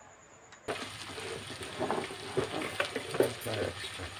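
Wooden spatula stirring shredded roti strips in a frying pan with hot oil and spices: a frying sizzle with irregular scrapes and clicks of the spatula against the pan. It starts abruptly under a second in.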